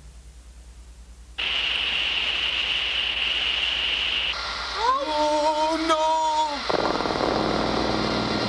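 Cartoon sound effect of a speeding subway train in a tunnel: a loud rushing noise with a steady high whine starts suddenly about a second and a half in. About five seconds in, a pitched wail rises and holds for about two seconds, then cuts off, leaving a deeper rushing rumble.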